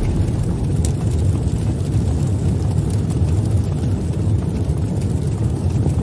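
Logo-reveal sound effect: a loud, steady, low rumble with a hiss over it and a few faint crackles, like a jet or fire whoosh held on.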